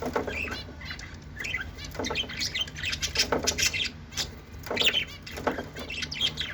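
Lovebirds chattering: a dense run of shrill chirps and squawks, with several louder squawking clusters.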